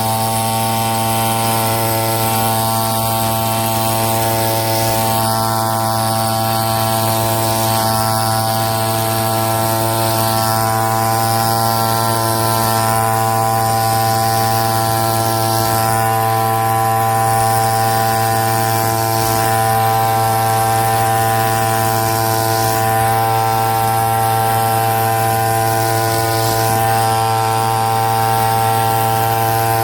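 Two-stroke brush cutter engine running continuously at a steady, unchanging pitch.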